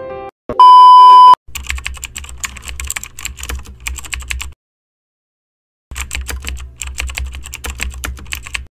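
A loud, steady electronic beep lasting under a second, followed by a computer-keyboard typing sound effect in two runs of about three seconds each, separated by a short silence, accompanying on-screen text being typed out.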